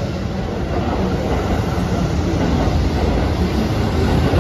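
Keihan electric commuter train running past along the platform: a steady, loud rumble of wheels and running gear on the rails.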